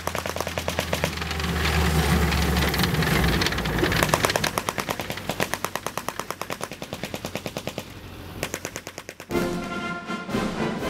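M4 High Speed Tractor driving on its steel tracks toward the camera: a rapid, even clatter of the track links over a low engine note that falls away about three seconds in. Music comes in near the end.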